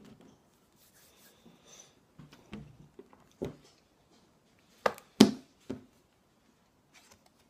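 A few short knocks and taps of a deck of playing cards and a tiny plunger being handled and set down on a wooden table, the loudest about five seconds in, with light rubbing between.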